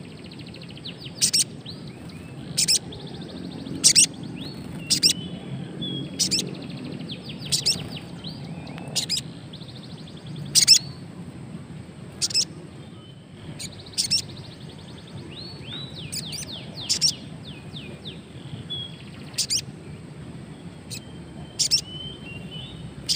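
Brown-throated sunbird (sogon) calling: sharp, loud chips about once every second or so, with runs of quick, high twittering notes between them. It is a newly kept wild bird that is calling but not yet in full song.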